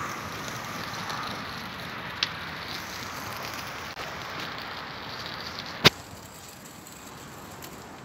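Wood campfire burning with a steady hiss and small crackles, with a sharp crack about two seconds in and a louder snap near six seconds.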